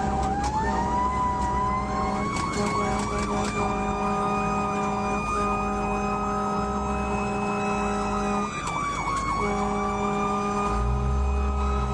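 Fire truck siren winding slowly up in pitch and holding high, sagging briefly and climbing again later. The truck's air horn is held in long blasts with short gaps between them, over the engine's rumble.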